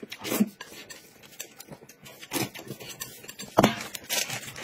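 Eating noodles with chopsticks: irregular slurping and chewing with light clicks of chopsticks on a plate, and one louder knock about three and a half seconds in.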